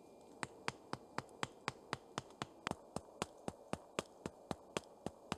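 A tarp stake being driven in by hand: a rapid, even run of sharp knocks, about four a second, starting half a second in, about twenty strikes in all.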